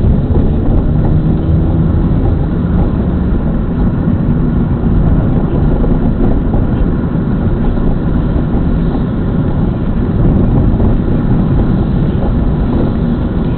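Steady engine and road noise of a moving car heard from inside the cabin, a continuous low rumble with no clear changes.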